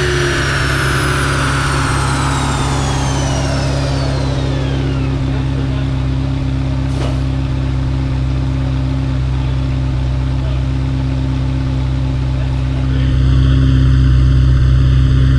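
Ferrari F40's 2.9-litre twin-turbo V8 idling steadily on a chassis dyno after a pull, while a high whine falls in pitch over the first five seconds as the rear wheels and dyno rollers coast down. Near the end the sound gets louder.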